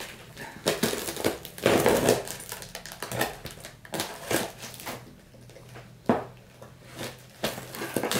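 Scissor blade slicing along packing tape on the top of a cardboard box: uneven scraping, crackling and tearing, with a sharp click about six seconds in.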